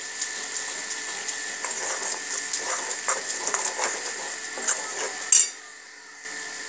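Steel spoon stirring and scraping thick masala in a kadai, with many light clinks of metal on the pan over a steady sizzle of masala frying in oil. A louder clink comes about five seconds in.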